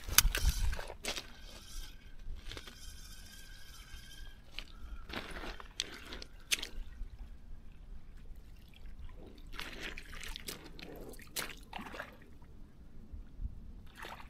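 Shallow river water sloshing around wellington boots and loose pebbles crunching underfoot as a person shifts about at the water's edge, in scattered short knocks and splashes, loudest in the first second.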